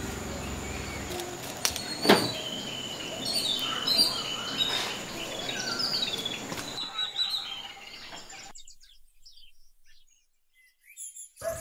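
Birds chirping and calling in short repeated notes, over a steady high whine. A single knock sounds about two seconds in, and the sound drops to near silence for about three seconds near the end.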